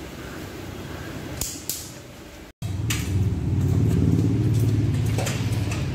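A click-type torque wrench clicking twice in quick succession as a cylinder-head bolt on a Tata Nano engine reaches its set torque. After an abrupt cut, a loud low mechanical rumble takes over.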